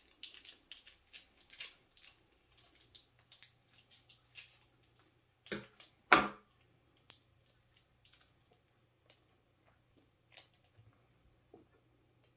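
Scissors snipping open the wrapper of a small wrapped mango candy, with light crinkling and clicking of the wrapper throughout and two louder sharp clicks a little past halfway.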